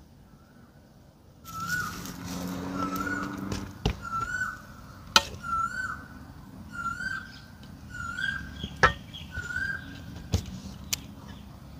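A bird calling over and over, a short whistled note that bends up and down, about once a second. A few sharp clicks stand out among the calls.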